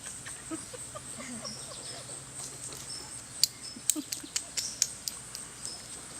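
Young puppies squeaking and whimpering in short, faint little calls while they tussle, with a run of sharp clicks and scuffles about halfway through.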